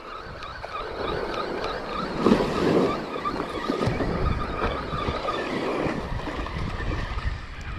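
Small surf waves washing onto a sandy beach, with wind on the microphone and a spinning reel being cranked to wind in a small fish.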